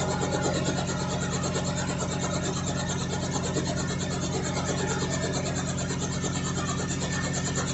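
Radio-controlled scale model Robinson R44 helicopter running steadily, an even, unchanging hum of motor and rotors with a rasping edge.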